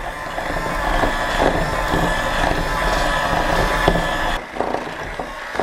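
Electric hand mixer running, its beaters churning a thick mixture in a plastic bowl: a steady motor whine that dips briefly about four and a half seconds in.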